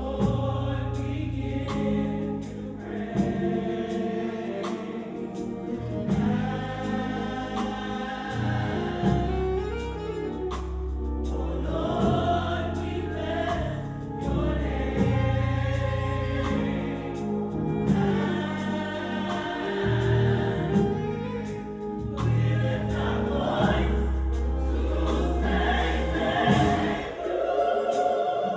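Gospel choir singing over a band, with a deep bass line and drum hits underneath.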